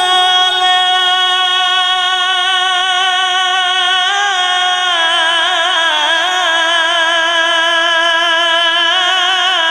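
A male qari's voice in Quran recitation (tilawat) holds one long melismatic note over a sound system. The pitch is steady for the first half, then breaks into quick wavering trills from about five seconds in.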